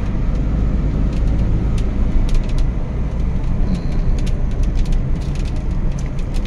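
Steady engine and tyre rumble heard from inside a moving car's cabin, with scattered light taps of raindrops striking the windshield.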